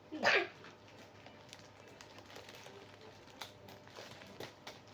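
Hands working at a sandal's packaging: scattered faint clicks and taps. There is one short, louder sound about a quarter of a second in.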